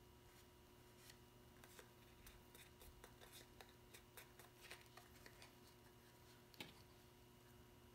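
Faint crinkling and clicking of cardstock as fingers fold and press the tabs of a small paper box together, a scatter of small ticks with one sharper snap near the end, over a low steady hum.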